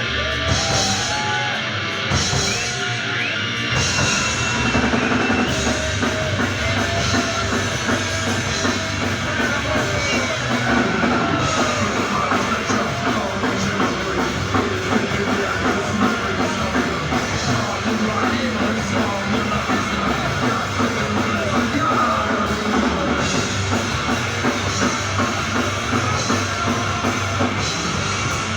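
Heavy metal band playing live: drum kit and electric guitars.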